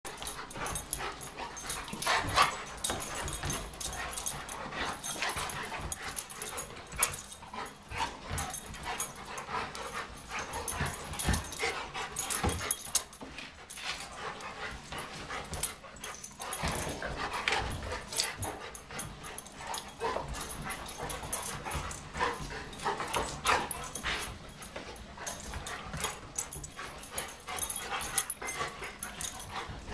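Two dogs, a Bernese Mountain Dog and a tan short-haired dog, play-fighting: irregular dog noises mixed with scuffling of paws and bodies, coming in bursts throughout.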